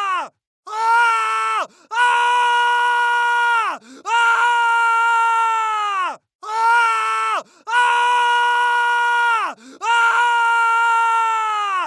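A person's screams of pain, repeated about six times in quick succession, alternating shorter and longer cries. Each is held at a steady high pitch and drops away at its end, with a short break between cries.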